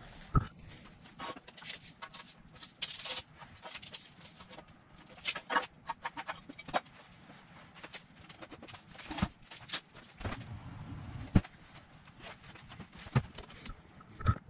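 Irregular knocks, clicks and rustling of a person moving about and handling things, with a sharper knock about eleven seconds in.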